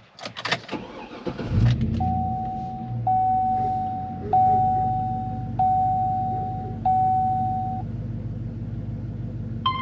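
A few clicks, then the Chevy Silverado's 6.2-litre V8 cranks and starts about a second and a half in and settles into a steady idle. Over the idle a chime sounds five times in a row, each tone held about a second.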